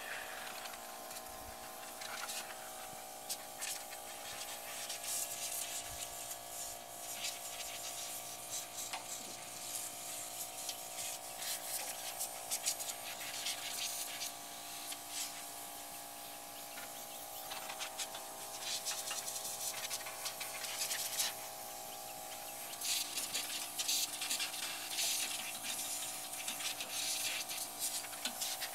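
Compressed-air blow gun blowing grime and grease out of a mower deck's idler tensioner pivot, in repeated hissing blasts of varying length, over a steady hum.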